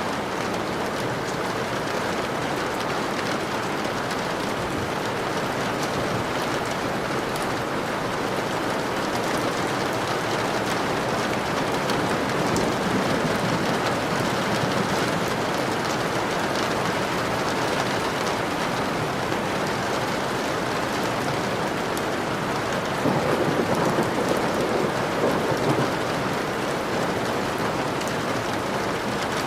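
Steady heavy rain falling, a dense even hiss, swelling louder briefly about two-thirds of the way through.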